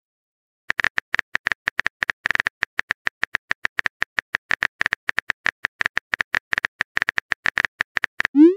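Phone keyboard typing sound effect: a rapid run of short clicks, several a second, as a text message is typed. A short rising whoosh starts right at the end.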